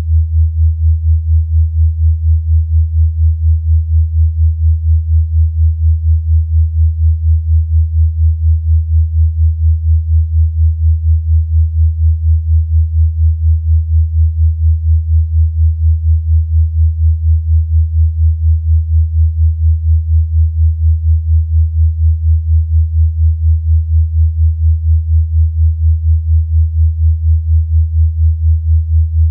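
Synthesised low sine tone of a wellness 'frequency' track, held at one pitch and pulsing evenly about three times a second.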